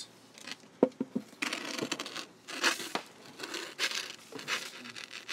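Baking paper crinkling and tearing in repeated rustles as it is pulled away from loaves of bread dough, with a few light knocks about a second in.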